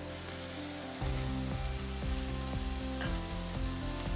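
Chicken strips in a soy and syrup marinade sizzling on a hot griddle pan as they caramelize, with background music that gets louder about a second in.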